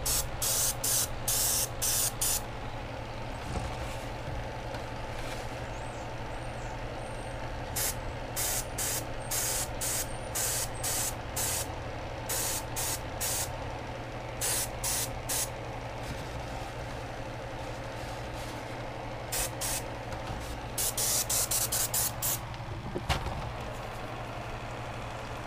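Paasche airbrush spraying paint onto a crankbait in a series of short hissing bursts, some in quick runs and some alone, over a steady low hum.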